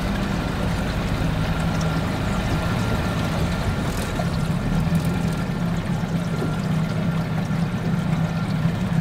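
Small boat's motor running at low speed, a steady low drone that holds even throughout.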